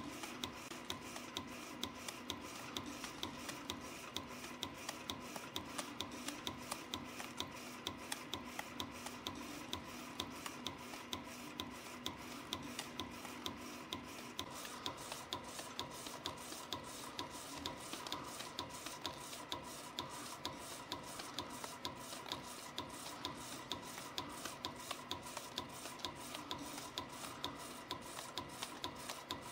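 CNC spring coiling machine running, coiling and cutting 0.6 mm wire compression springs at a rated 120 a minute: a quick, even clicking over a steady motor hum with a few held tones.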